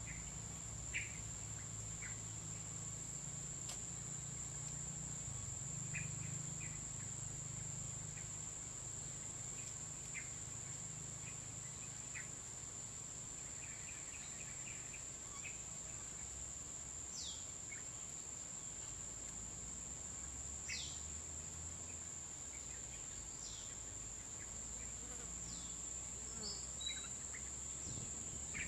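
Steady high-pitched drone of tropical insects, with scattered short chirps and a few quick downward-sliding calls in the second half.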